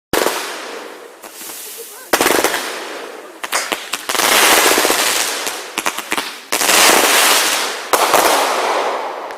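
Consumer fireworks going off in a run of about five loud bursts, each followed by dense crackling that fades before the next.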